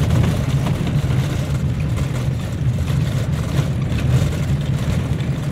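Steady low rumble of a moving road vehicle's engine and road noise, heard from inside the vehicle while it travels.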